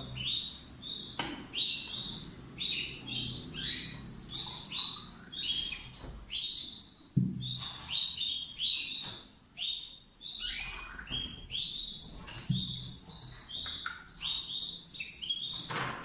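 Caged finches chirping and twittering, a steady run of short, quick, downward-sliding calls, with a few clicks and knocks of a plastic bird drinker being handled.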